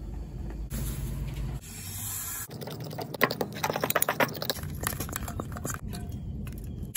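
Powder poured into a ceramic bowl of water with a soft hiss, then a fork stirring the mix, a quick run of scrapes and clinks against the bowl lasting about two seconds.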